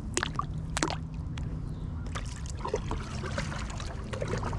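Water lapping and trickling right at the microphone, with a low steady rumble and a couple of sharp little splashes in the first second, as a kayak is paddled nearby.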